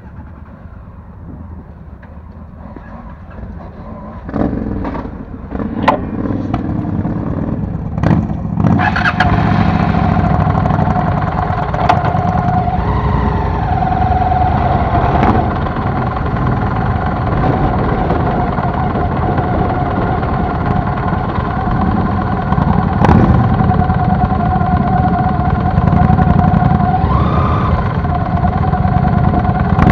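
Motorcycle engines running as a group of motorcycles pulls away, the closest a Honda Shadow V-twin cruiser. The sound gets louder about four seconds in and again near nine seconds, with a few sharp clicks along the way.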